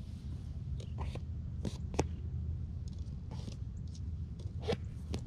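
Rain ticking irregularly on dry leaves and grass close to the microphone, a dozen or so sharp drops, the loudest about two seconds in, over a steady low rumble.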